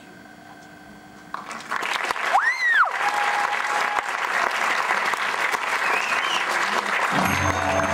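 Audience applauding in a hall, breaking out about a second and a half in. Just after the clapping starts, someone gives one whistle that rises and falls. Music begins near the end.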